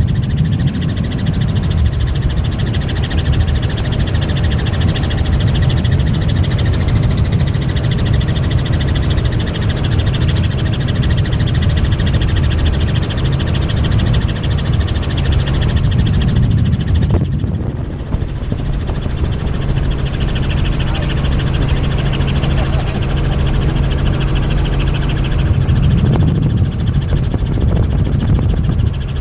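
Tour helicopter in flight, heard from inside the cabin: steady loud rotor and engine noise with a constant high whine, dipping briefly about two-thirds of the way through.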